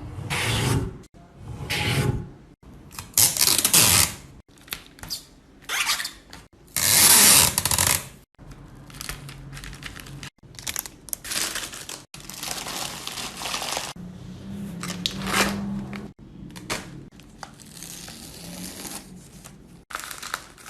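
A string of short, separate bursts of scratchy rubbing and crackling handling noise, each broken off abruptly, with the loudest burst about seven seconds in.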